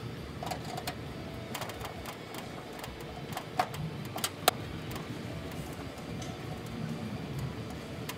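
A handful of sharp, light metallic clicks as screwdrivers work against the aluminum toolbox lid and its bracket, the sharpest about halfway through, with music underneath.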